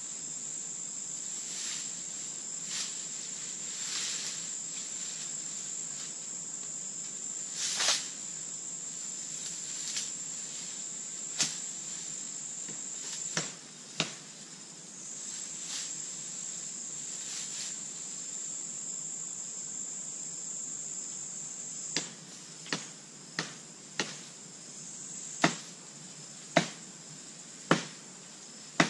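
Steady high-pitched insect drone that breaks off twice, with sharp chopping strikes into wood: a few scattered ones, then a run of about eight, roughly a second apart, over the last seven seconds.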